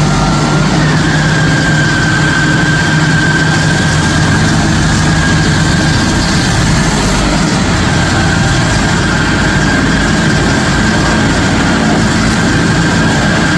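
Stump grinder running steadily, its engine giving a constant low drone with a thin high whine on top.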